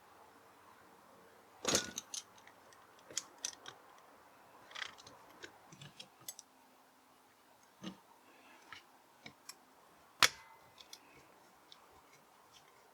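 Scattered metallic clicks and knocks of a G-clamp and clutch parts being handled, with sharper knocks about 2 s in and about 10 s in.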